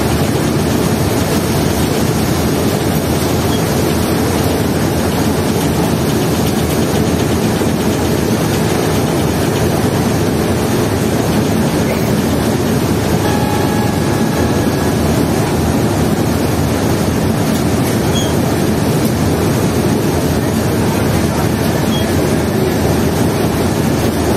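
Diesel engines of the river launch MV Tasrif 1 running steadily under thrust as it pulls away, a loud, even rumble mixed with the rush of its propeller wash churning at the stern.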